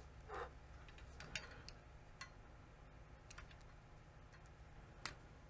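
Near silence with a few faint, scattered clicks of multimeter test probes tapping and scraping against a power supply's metal plug pins and barrel connector, over a low steady hum. The sharpest click comes about five seconds in.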